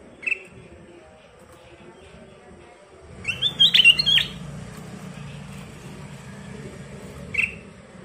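Ruby-throated bulbul (kutilang emas) calling: a single short chirp, then a brief burst of rapid, gliding notes about three seconds in, the loudest part, and another short chirp near the end, over a low background rumble.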